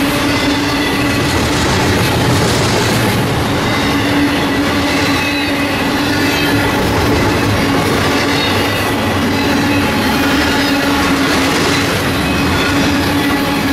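Union Pacific double-stack intermodal freight train rolling past at close range: a steady, loud rumble of steel wheels on rail as the container-laden well cars go by, with a low hum and thin high squealing tones from the wheels coming and going.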